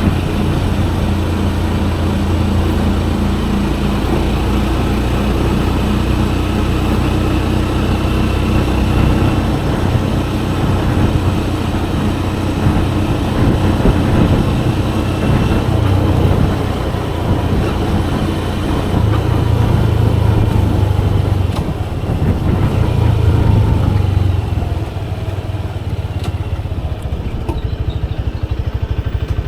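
Motorcycle engine running while riding through street traffic, a steady low hum that shifts in pitch and level as the throttle changes, with road and traffic noise around it.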